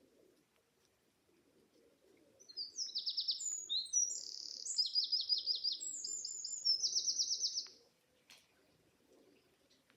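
A small songbird singing one loud phrase of rapid, high trills and twittering notes for about five seconds, starting a couple of seconds in.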